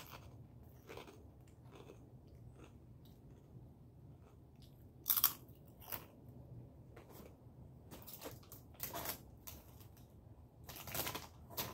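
Close-up chewing and crunching of crisp food in the mouth, in short irregular crackles, with louder crunches about five seconds in and near the end.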